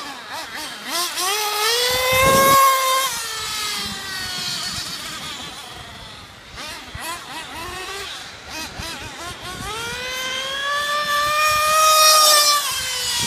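Two-stroke nitro glow engine of a Mugen RC truggy revved hard in two runs: a rising whine that peaks about two seconds in and drops away, then climbs again from about eight seconds, holds high and falls off near the end.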